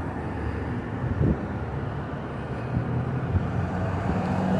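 Road traffic: a steady rush of car engines and tyres with a low engine hum underneath.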